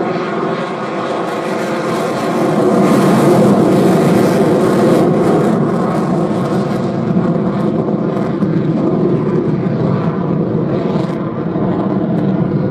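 Jet noise of a Mitsubishi F-2 fighter's single F110 turbofan engine in a low pass, loud and steady, peaking about three to five seconds in, then easing slightly as the jet pulls away.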